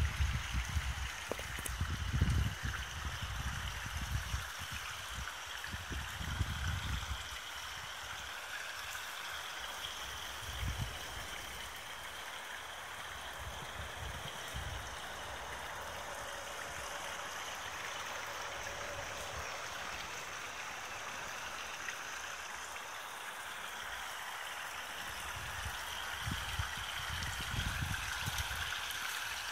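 Small stone waterfall at the head of a garden stream, trickling and splashing steadily into a fish pond. A few low rumbles come in the first several seconds and again near the end.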